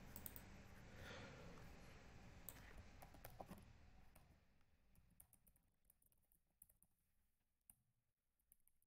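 Faint computer keyboard clicks from typing and deleting text, scattered through the first four seconds. After that it is near silence, with a few single key clicks.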